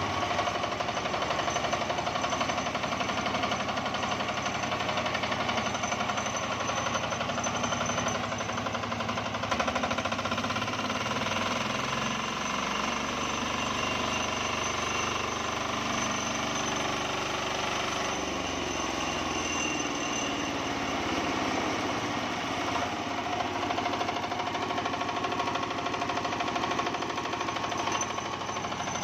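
Single-cylinder Matsumoto diesel engine driving a homemade sawmill, running with a rapid knocking beat; in the middle its pitch sags and climbs back.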